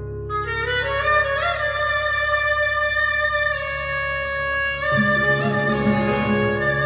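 Instrumental intro of a song: a slow, sustained melody with slides and vibrato over a steady low accompaniment.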